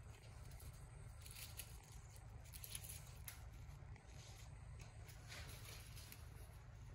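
Near silence: a steady low room hum with a few faint, soft rustles.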